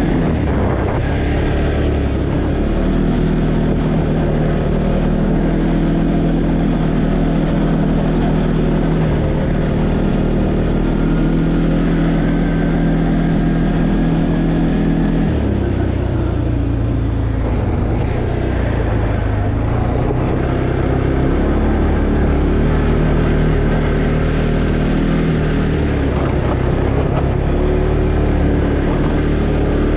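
2020 Arctic Cat Alterra 700 ATV's single-cylinder engine running under way at a steady pace; its note shifts lower about halfway through.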